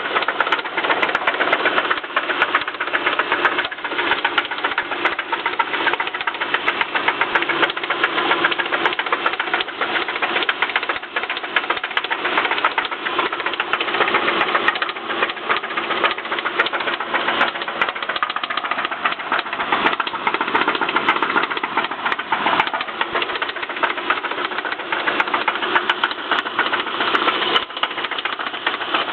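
2007 Subaru Impreza's flat-four engine running at a steady speed with a fast, continuous knocking and rattling. It is an unexplained knock that the owner says has been there for about a year, with a second rattle added after a breakdown.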